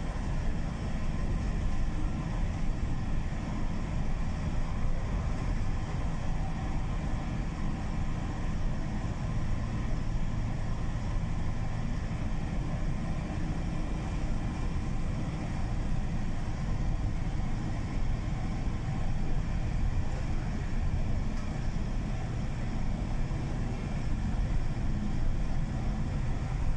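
Steady engine and road-tyre noise heard from inside the cabin of a large vehicle driving through a road tunnel. It is a constant low rumble that holds even throughout.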